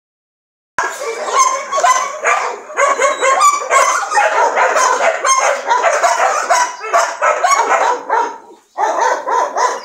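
Dogs barking and yipping in a fast, almost unbroken run of overlapping barks, starting about a second in, with a short break near the end.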